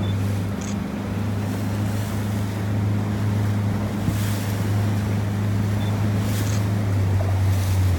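A small motorboat's engine runs steadily with a low hum, under wind buffeting the microphone and waves splashing against the hull. The hum drops away near the end.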